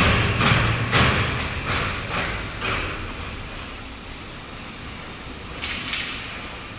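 A run of sharp knocks and clatters from work on a sliding glass door panel and its metal frame. About six knocks come in the first three seconds and grow fainter, and two more come close together near the end.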